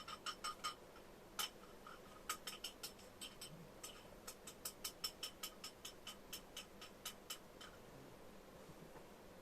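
A run of short, sharp clicks or taps, irregular at about two to four a second, stopping near the end.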